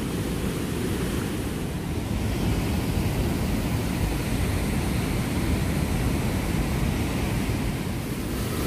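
River water pouring steadily over a stone weir, a constant rushing that sits mostly low in pitch.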